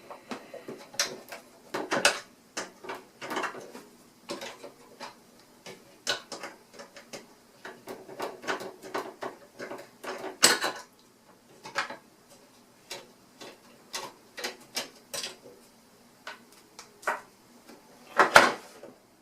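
Irregular clicks, taps and clatter of hand tools and small parts against a budget hobby sewing machine as its throat plate is taken off, with a louder knock about ten seconds in and another near the end.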